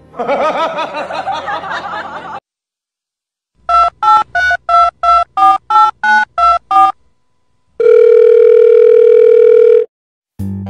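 Telephone keypad tones: about a dozen quick two-note beeps, as if a number is being dialled, then one steady tone lasting about two seconds. A voice is heard briefly before the beeps.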